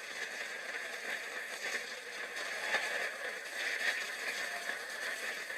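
Steady background hiss and noise of an old lecture recording, strongest in a high, narrow band, with no clear distinct events.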